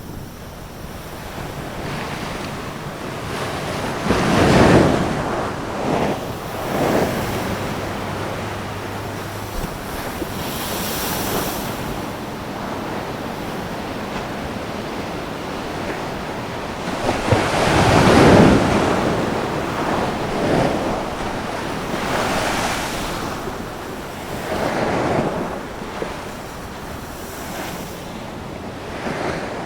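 Ocean surf: large waves breaking fast one after another in a strong wind, with the loudest crashes about four seconds in and again around eighteen seconds, over a steady rush of water and wind noise on the microphone.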